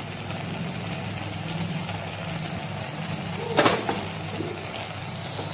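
A steady low machine hum, with one short knock about three and a half seconds in.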